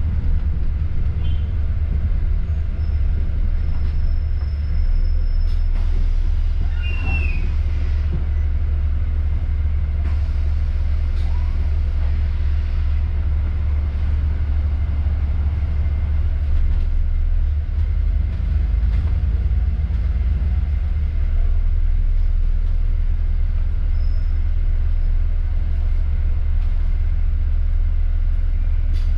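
Bus running along the road: a steady low rumble of engine and road noise, with a brief faint squeal about seven seconds in.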